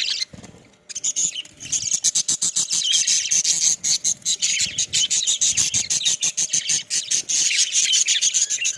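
A flock of budgerigars chattering, a dense stream of rapid high chirps that picks up about a second in after a brief lull.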